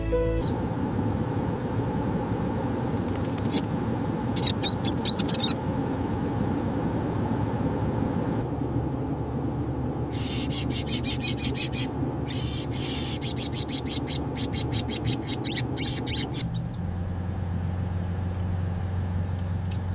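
Goldfinch chirping in quick runs of high calls, in several bouts, over a steady low rumble. The rumble changes pitch a few seconds before the end.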